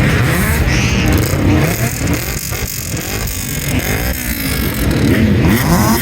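Car engines revving, the pitch repeatedly sweeping up and down.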